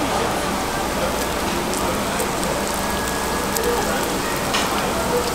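Pork belly and cheese sizzling on a hot tabletop grill pan, a steady frying hiss, with a few light clicks of metal tongs.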